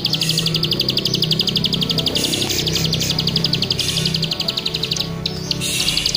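Plain prinia (ciblek sawah) singing a rapid, even, clicky trill that breaks off briefly about five seconds in.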